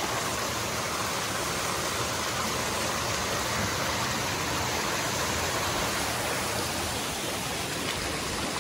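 Waterfall rushing: a steady, even hiss of falling water that does not change.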